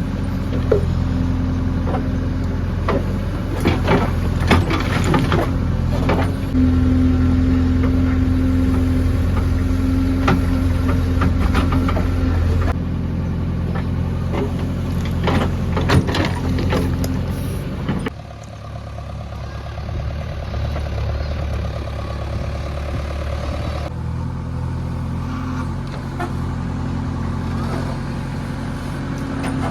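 JCB 3DX backhoe loader's diesel engine running steadily under load, with two spells of clattering knocks as the bucket digs and dumps mud. The engine note changes abruptly a few times.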